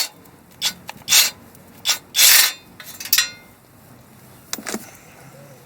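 Hand tool working the 19 mm nut on the steering-linkage stud: a series of short rasping metal strokes, the longest about two seconds in.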